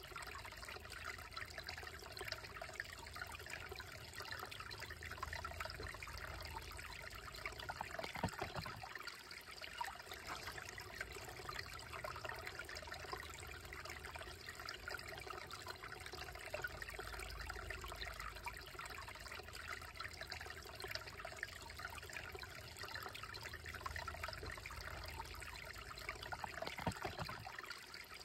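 Shallow, slow-moving creek trickling over and between rocks, a steady babble of water.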